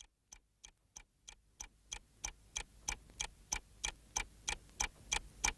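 Clock-like ticking, about three sharp ticks a second, starting very faint and growing steadily louder.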